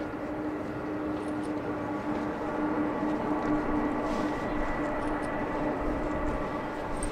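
Boeing 747 Dreamlifter's jet engines running as the aircraft taxis: a steady rushing hum with a whine held on several fixed pitches.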